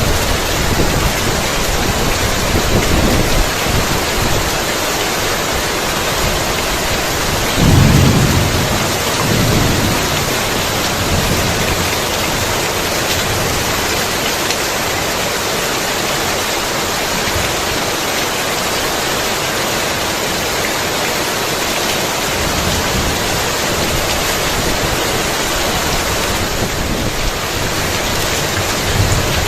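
Heavy rain pouring steadily, with low rolling thunder rumbling underneath; the strongest thunder swell comes about eight seconds in.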